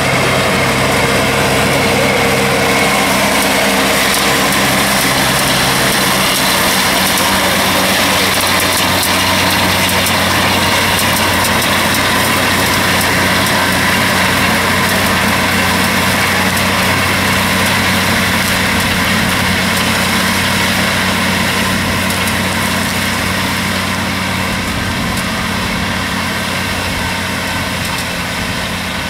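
Tractor engine running steadily under load, driving a trailed disc mower-conditioner through its PTO, with the mower's spinning discs adding a dense whirring hiss. The level eases off slightly near the end.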